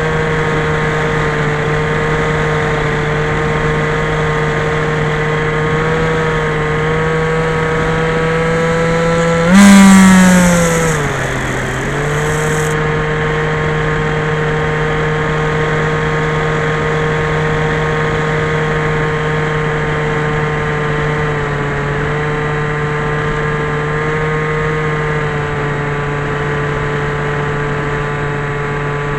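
Skyhunter FPV model plane's electric motor and propeller running at a steady pitch. About ten seconds in it surges much louder with a burst of hiss, then the pitch falls over a couple of seconds before it settles back to a steady drone.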